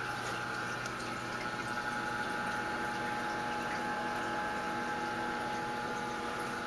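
Aquarium filter running: a steady hum of several tones under a constant trickle and bubbling of water, with faint scattered ticks.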